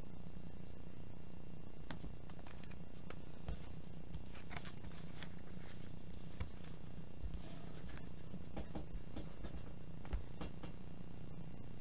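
A steady low hum with scattered light clicks and short rustles, busiest between about two and seven seconds in, and one sharper tap near ten seconds.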